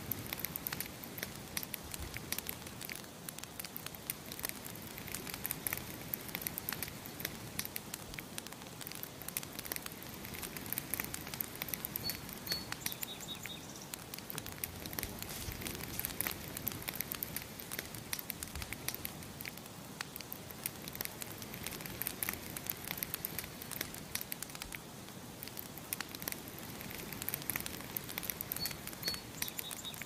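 Wood campfire crackling steadily, with dense irregular pops and snaps. A bird gives a brief high chirp twice, about twelve seconds in and again near the end.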